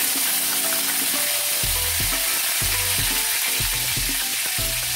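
Mustard seeds and curry leaves sizzling in hot oil in a kadai, a steady loud sizzle. Soft background music with a steady beat comes in about a second and a half in.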